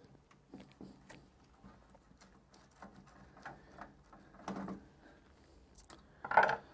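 Light scattered clicks and ticks of a screwdriver backing out a logic-board mounting screw in a metal computer case, with a louder knock about four and a half seconds in and another about six seconds in.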